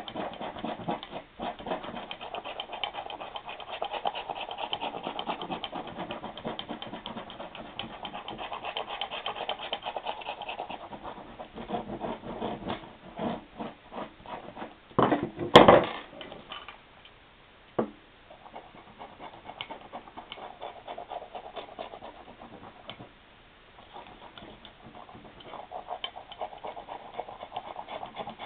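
Dried acrylic paint being scratched off candle-waxed glossy magazine paper with a hand tool, a long run of rapid scratching strokes. About fifteen seconds in come a few loud knocks, then the scratching goes on in shorter runs.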